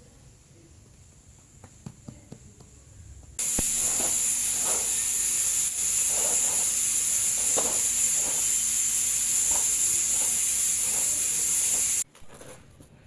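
A loud, steady hiss starts abruptly about three seconds in and cuts off suddenly near the end, with faint knocks and clicks beneath it.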